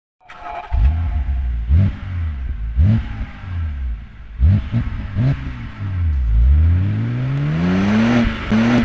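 Car engine revving in several quick blips that rise and fall in pitch, then climbing steadily over the last few seconds before cutting off suddenly.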